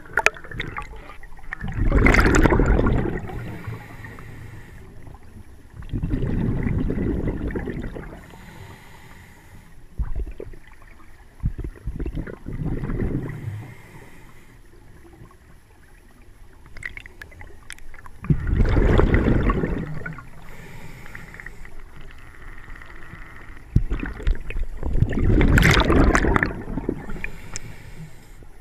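Scuba diver breathing through a regulator underwater: a loud rush of exhaled bubbles about every five to six seconds, five times, with fainter regulator hiss of inhalation between.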